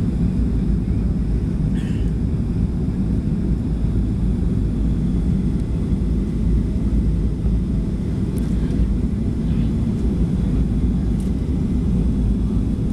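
Cabin noise inside a Boeing 737 on final approach with flaps extended: a steady low rumble of airflow and CFM56 turbofan engines, with faint steady engine tones above it.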